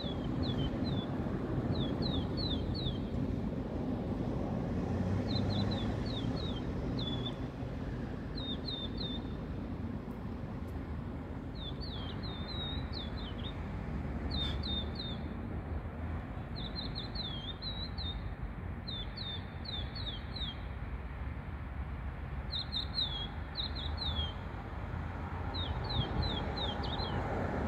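A small bird chirping in quick runs of three to five short, falling high notes, repeated every second or two, over a steady low rumble.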